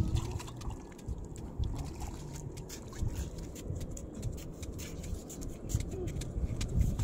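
Wind buffeting the microphone in a low, uneven rumble, with faint water sounds and scattered small clicks from the wet ground.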